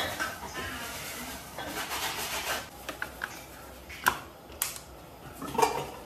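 Kitchen handling sounds: a soft hiss at first, a few light clicks, then a sharp click about four seconds in as a wall socket switch is flicked on, followed by another click.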